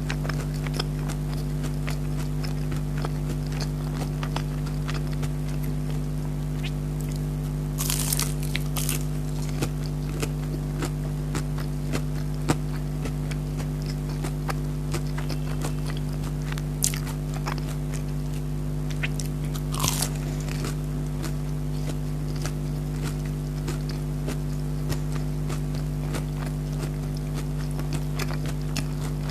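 Close-miked chewing and biting of breaded chicken nuggets: many small wet mouth clicks and crunches, with a few louder bites scattered through. A steady low hum runs underneath.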